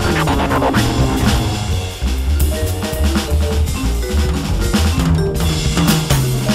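Jazz swing four-beat played on a Roland V-Drums electronic kit, heard as the drum module's sampled kit sounds: ride, snare and bass drum hits. Under it runs a sequenced backing with a stepping bass line and sustained keyboard-like notes.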